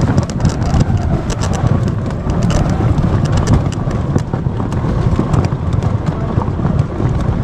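Aboard a small boat on open water: a loud, fluctuating low rumble of wind buffeting the microphone, with short crackles and splashes of water against the hull.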